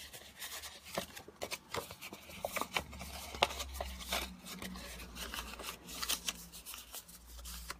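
A square of printed paper being folded and creased by hand: irregular crackling and rustling as the sheet bends and its folds are pressed.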